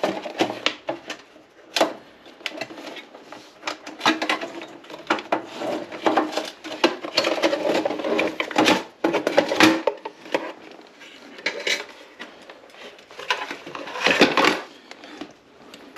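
Clicks, clatter and scraping of a bathroom exhaust fan's housing and parts being handled by hand, with irregular sharp knocks.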